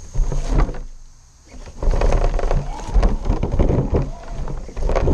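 RC rock crawler driven over rock and dry leaves, heard from a camera mounted on it: the drivetrain runs in spurts while the tyres crunch through leaves and twigs and scrabble on the rock, easing off briefly about a second in.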